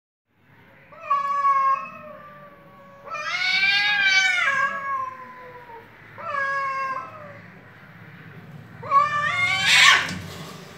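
Cats yowling at each other in a fight standoff: four long, wavering caterwauls a couple of seconds apart. The last one breaks into a harsh, noisy screech.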